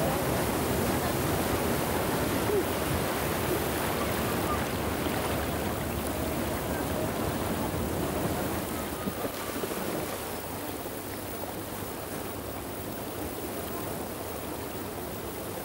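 Muddy spate floodwater rushing through a breach in an earthen field wall, a steady rushing noise that becomes quieter about ten seconds in.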